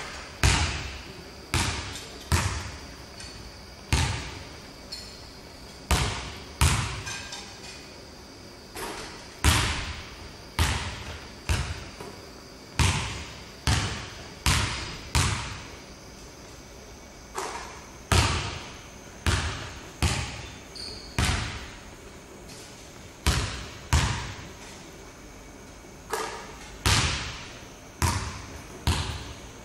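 A basketball bouncing on a hardwood gym floor: single bounces and short runs of dribbles at an uneven pace, each thud ringing out in the hall's echo.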